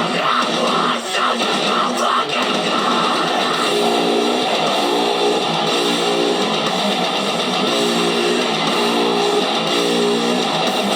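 Music led by strummed electric guitar, with a chord pattern repeating at a steady pace from about four seconds in.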